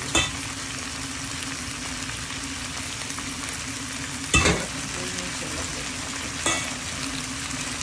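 Meat and vegetables sizzling in a nonstick frying pan, a steady hiss over a low hum. Three short clatters of stirring against the pan, at the start, about four seconds in and again about six and a half seconds in.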